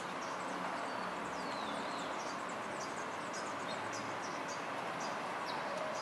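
Thrush singing: a thin whistle about a second in that slides downward, with many short high notes, over a steady background hiss.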